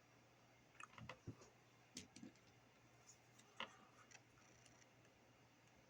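Near silence with a few faint, scattered clicks and light taps from small parts or tools being handled.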